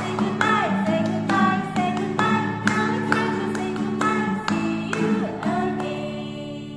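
Acoustic guitar strummed in a steady rhythm under women singing a song. The strumming stops about five and a half seconds in and the last chord rings out and fades.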